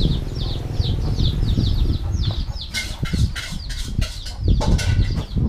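Birds cheeping rapidly, a steady run of short high peeps a few times a second, over a low rumble. Between about three and five seconds in, chopsticks and a spoon click against a noodle bowl.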